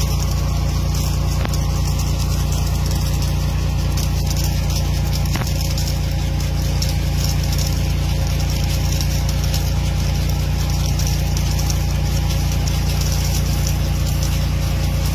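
Steady, unchanging low drone of a running engine, with the hiss of irrigation sprinklers spraying water over the crop.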